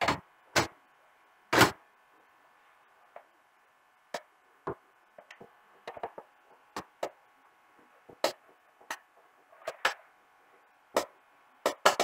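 Scattered sharp clicks and taps of the LG 32LB560B TV's LCD panel and frame being handled and pressed into place during reassembly. They come irregularly, loudest in a cluster near the start and another near the end.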